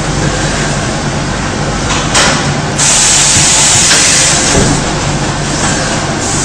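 Shower curtain welding machine running, with pneumatic cylinders venting compressed air over steady machine noise: a short hiss about two seconds in, then a longer, louder hiss lasting about a second.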